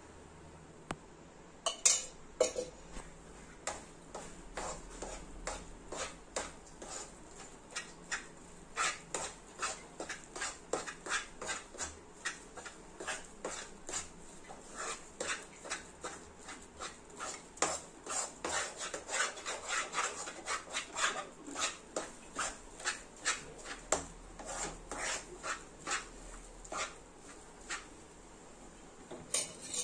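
Steel spoon scraping and knocking against a nonstick frying pan while stirring chana dal paste roasting in ghee: a steady run of short clicks and scrapes, about two a second.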